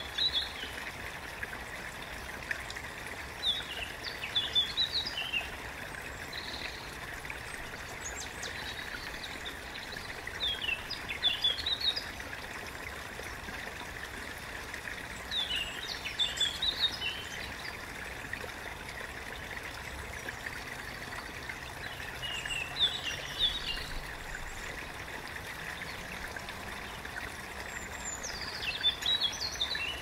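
A small stream trickling steadily, with a songbird singing a short burst of high chirps every five or six seconds.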